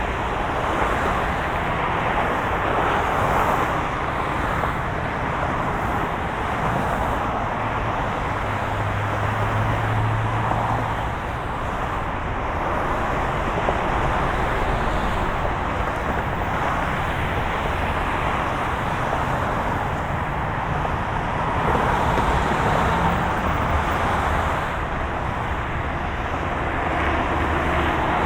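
Road traffic: a continuous wash of cars going by, swelling and easing as individual vehicles pass, with a low engine hum standing out briefly about nine seconds in.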